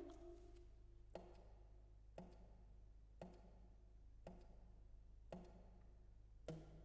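Saxophone played percussively: six faint pops, evenly spaced about once a second, each with a brief low pitched ring from the horn.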